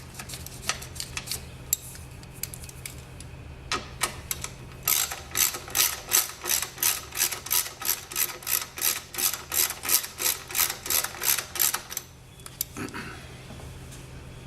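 Hand ratchet wrench turning a bolt in by hand: scattered clicks at first, then about five seconds in a steady run of sharp pawl clicks, about four a second, lasting about seven seconds before it stops.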